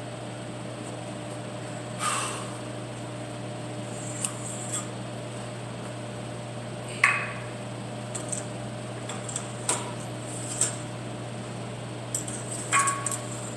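Metal weight plates clanking against a barbell sleeve as they are changed between sets: a handful of sharp metal knocks, the loudest about halfway through and one near the end ringing briefly. A steady ventilation hum runs underneath.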